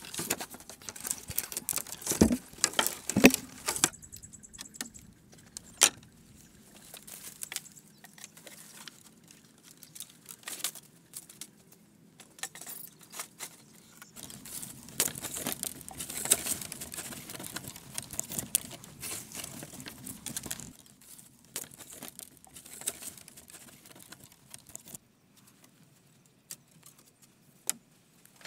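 Dry bamboo poles clacking and knocking against each other and against a wooden log frame as they are handled and laid in place, with sharp knocks a few seconds in and again about six seconds in. A longer stretch of rustling and crackling of dry material follows in the middle.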